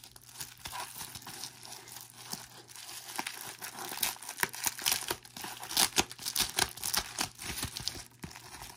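Plastic bubble wrap crinkling as it is handled and unwrapped from around card packs. It is a dense run of crackles that grows louder about halfway through.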